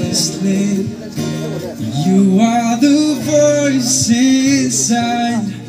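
Live acoustic guitar strumming accompanying a woman singing into a microphone.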